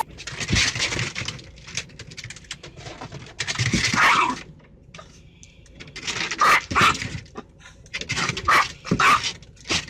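A dog barking in a string of short, loud bursts inside a car, lunging across the dashboard at the moving windshield wipers.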